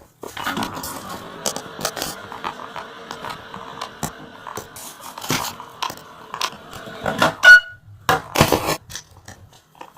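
Microwave oven running with a steady hum, stopping with a short, loud, high beep about three-quarters of the way through as the cooking cycle ends, followed by scattered clicks and handling knocks.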